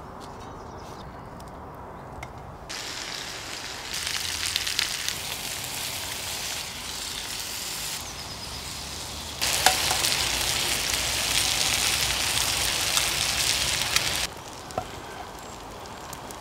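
Meat sizzling as it fries in a cast-iron skillet over a wood fire. The sizzle starts abruptly about three seconds in, eases for a moment, then comes back louder with small pops before cutting off sharply near the end.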